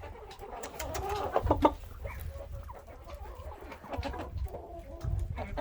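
Chickens clucking, a scatter of short calls from several birds, with a couple of louder, sharper sounds about a second and a half in.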